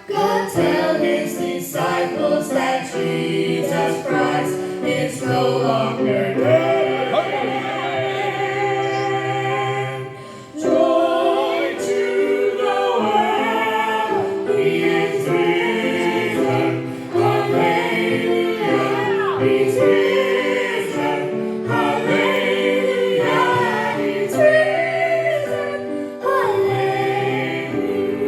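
A family gospel group singing, several voices together, with a brief break about ten seconds in.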